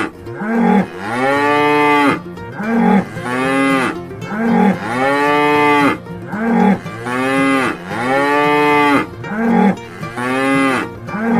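Repeated mooing, in alternating pairs. A short higher call is followed by a longer call that rises and falls in pitch, about five times in a row.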